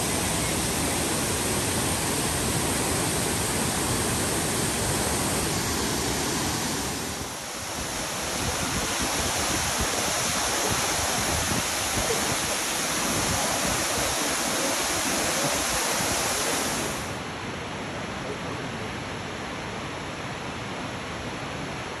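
Waterfalls pouring into a pool: a steady rush of falling water, dipping briefly about seven seconds in and falling quieter from about seventeen seconds in.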